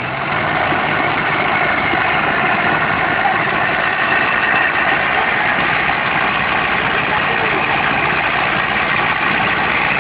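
Two farm tractors' diesel engines running under heavy load as they pull against each other. The sound is loud and steady, and it steps up in level about half a second in.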